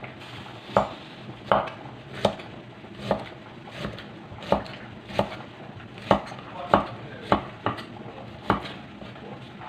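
Chinese cleaver slicing ginger into thin pieces on a round wooden chopping block: about a dozen sharp knocks of the blade on the wood, roughly one every two-thirds of a second, slightly uneven.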